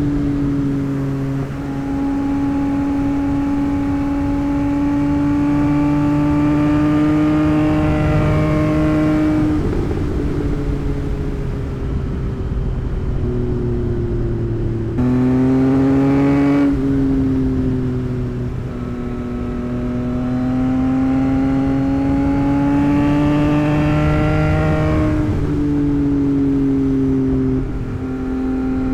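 2024 Yamaha MT-09's three-cylinder engine, running an aftermarket Moore Mafia tune, pulling under load. Its pitch climbs slowly and falls sharply at each gear change, several times over.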